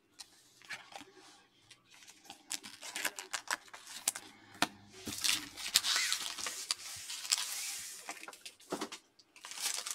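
Trading cards being handled and set down on a table: scattered soft clicks and taps, then a few seconds of sliding, rustling card noise about halfway through.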